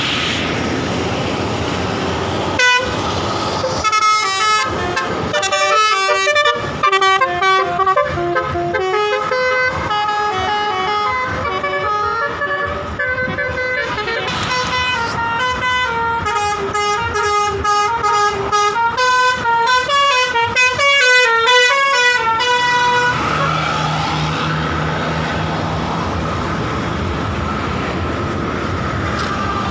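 A bus's telolet musical horn, the Basuri type, playing a long tune of quick stepped notes. A short blast comes about three seconds in, the tune starts a second later and stops about 23 seconds in. The bus's engine and road noise run underneath.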